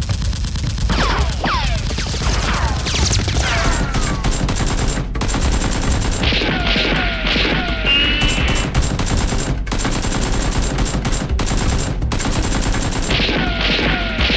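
Rapid gunfire sound effects dubbed over toy Nerf blaster action: dense runs of shots with several falling whistling tones, over background music.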